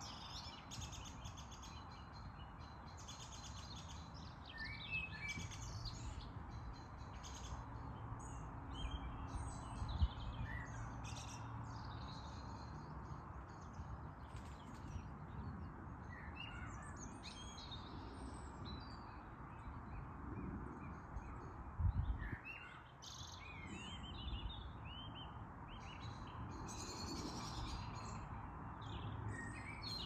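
Several songbirds chirping and singing in short, scattered phrases over a steady low background noise. Two brief thumps stand out, about a third of the way in and again about two-thirds of the way in.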